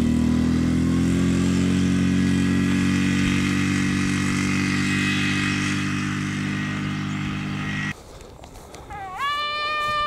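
Quad bike engine running steadily as the ATV drives off over grass, fading slightly, then cut off abruptly. Near the end, a short high-pitched call rises and then holds.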